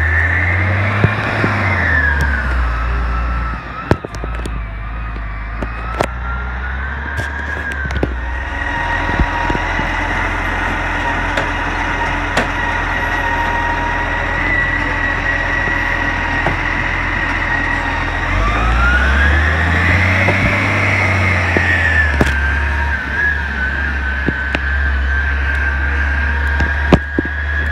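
Dennis Eagle side-loading garbage truck's diesel engine running, with its automated arm gripping and lifting a plastic wheelie bin. The engine rises in revs twice, near the start and about two-thirds through, and a steady high whine runs through the middle. Several sharp knocks come from the bin and arm.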